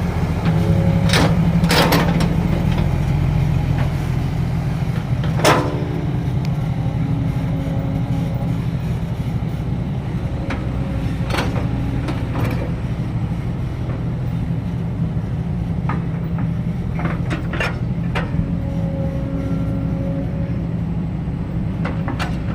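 Heavy diesel engine of a construction vehicle running steadily, with a handful of sharp metal clanks and knocks, the loudest about five seconds in.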